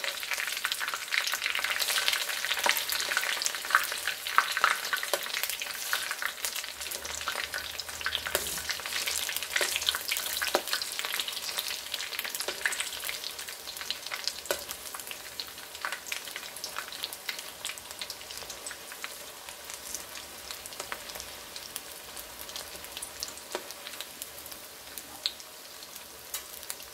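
Battered dandelion flowers deep-frying in hot oil: a dense, steady crackle with many sharp pops, which the cook puts down to air trapped inside the hollow flower heads and stems. The crackling is loudest in the first half and settles and quietens later, with metal tongs moving the fritters in the pan.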